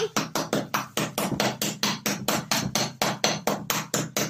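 A small hammer striking a plaster-of-Paris dig block again and again, fast and even, about five or six blows a second, chipping it open to reach the pieces buried inside.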